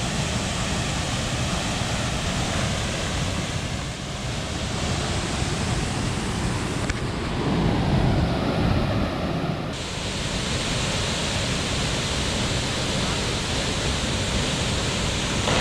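Steady rushing roar of a waterfall, about 30 m high, pouring into a deep plunge pool. About halfway through, the sound turns duller for a few seconds, with a stronger low rumble.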